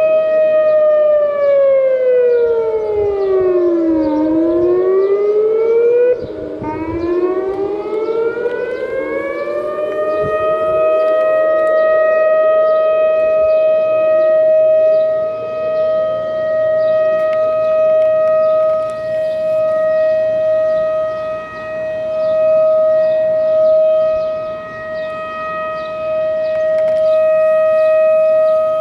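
Civil defence warning sirens sounding in a test of the emergency alert system. The siren holds a steady tone, slides down in pitch and back up once over the first ten seconds, with another siren's sweep overlapping, then holds the steady tone.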